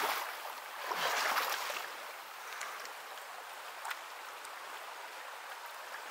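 Splashing of boots wading through a shallow river for the first couple of seconds, then the steady rush of the river's current.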